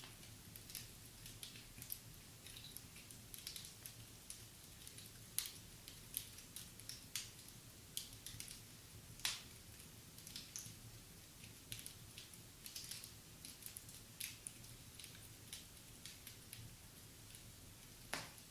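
Wood fire in a fireplace crackling softly, with irregular snaps and pops. The sharpest pops come about five and nine seconds in.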